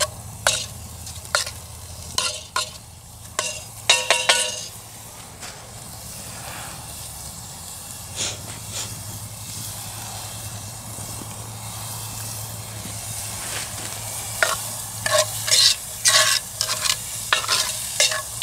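Onions sizzling in oil in a cast-iron Dutch oven, with a spoon scraping and clinking against the pot as they are stirred during the first few seconds and again near the end. The middle stretch is a steady sizzle.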